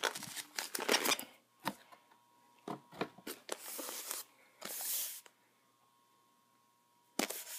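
Cardboard and plastic packaging being handled, rustling and scraping, with several sharp clicks and knocks. The sound cuts out completely for about two seconds near the end.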